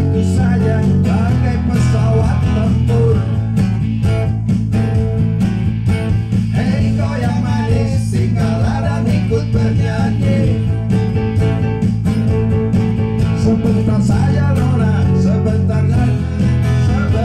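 Live band music: acoustic guitar and keyboard accompanying a man singing into a microphone.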